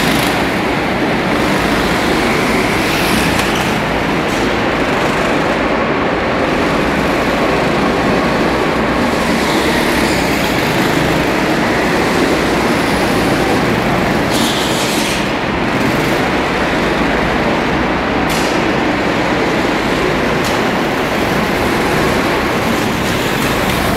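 Go-kart engines running steadily as karts lap an indoor track, a loud continuous drone filling a large hall.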